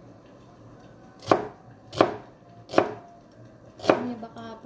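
Chef's knife slicing through a red onion and striking the cutting board: four sharp chops, roughly one a second, beginning about a second in.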